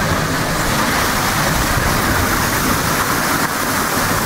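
Four-wheel drive driving through deep floodwater: a steady rush and slosh of water churned up around the vehicle, over a low rumble.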